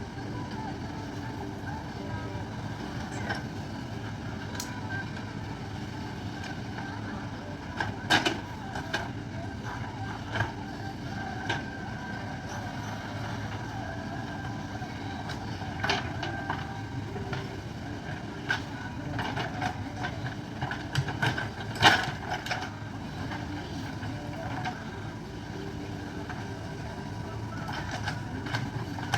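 JCB backhoe loader's diesel engine running steadily, with scattered sharp knocks and clanks; a cluster comes about 8 s in, and the loudest knock is about 22 s in.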